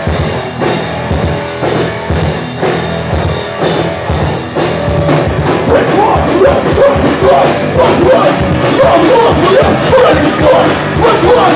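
Live punk-rock band playing loud, with electric guitars and a steady drum beat; voices singing or shouting come in about halfway through.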